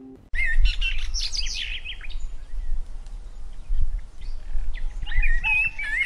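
A flock of budgerigars chattering and warbling, with a dense burst of chirps about a second in and more calls near the end, over a steady low rumble.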